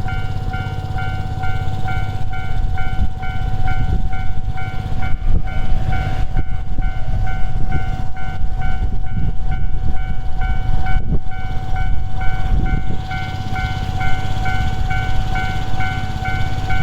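Japanese railway level crossing's electronic warning bell ringing in a steady repeating pattern, about one and a half strikes a second. Under it a train passes with a heavy rumble of wheels on rails, which eases about thirteen seconds in.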